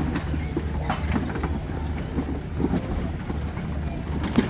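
Footsteps knocking irregularly on wooden planks over a steady low rumble, with one louder knock near the end.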